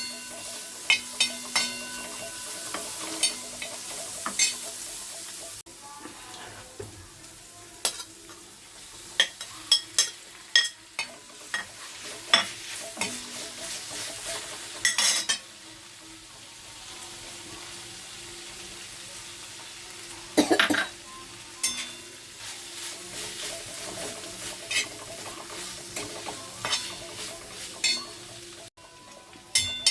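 Food sizzling in a hot pan while it is stirred, with frequent sharp clinks and scrapes of a utensil against the pan. The sizzle drops a little about five seconds in.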